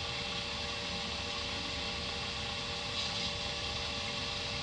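A steady mechanical hum with several fixed tones over an even hiss, unchanging throughout, like a small motor running.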